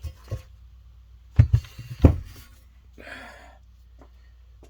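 A few sharp knocks of parts being set down and handled on a workbench, the loudest about a second and a half in and again at two seconds, followed by a short soft rustle.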